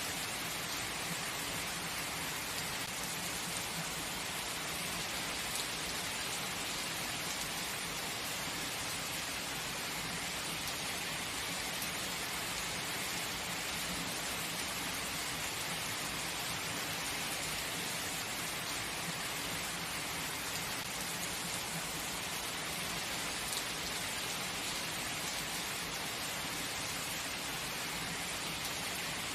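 Steady heavy rain: an even, unbroken hiss of falling rain on a surface.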